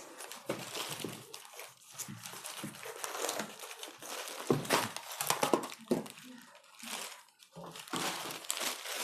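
Plastic wrapping crinkling and cardboard packaging rustling as a water pump is unpacked from its box, with a couple of light knocks midway and a short pause near the end.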